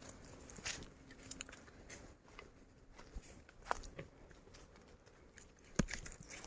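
Footsteps on a forest footpath: sparse, irregular crunches and crackles of leaves and twigs underfoot, with a sharper knock near the end.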